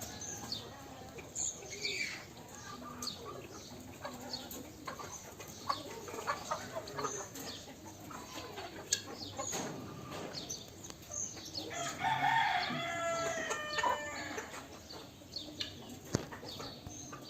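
Chickens clucking in short scattered calls, with a rooster crowing once, the loudest call, about twelve seconds in.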